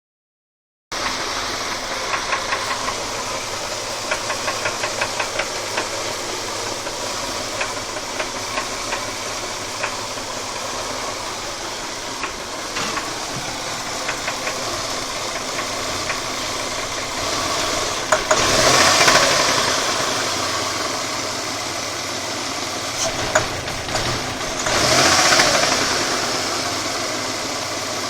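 Mitsubishi Galant's 6A13 2.5-litre V6 running with a rhythmic knock, typical of a spun connecting-rod or main bearing shell. The engine gets louder twice, about two-thirds of the way through and again near the end, as it is revved.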